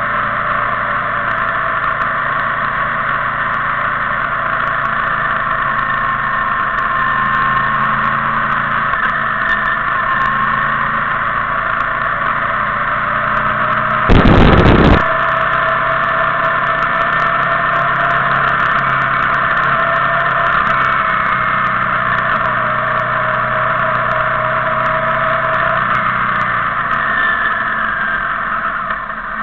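Motorcycle engines running steadily while riding in a group, under a constant rushing noise. About halfway through there is a sudden loud blast of noise lasting about a second.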